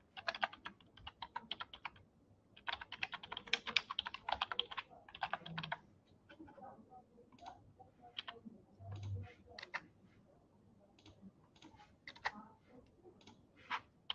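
Typing on a computer keyboard: two quick runs of keystrokes in the first five seconds, then scattered single key presses and clicks.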